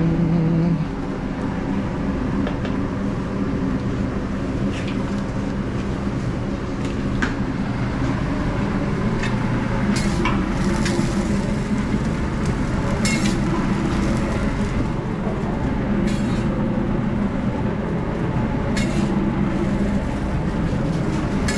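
Commercial kitchen's steady mechanical drone, with a sharp clink or knock of cookware every few seconds.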